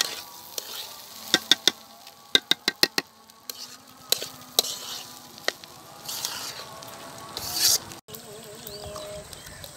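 Long metal spatula scraping and clinking against a wide steel karahi while rice and onions for khichuri are stirred and fried, with the food sizzling. A quick run of sharp clicks comes in the first few seconds, then scattered knocks and a brief louder scrape.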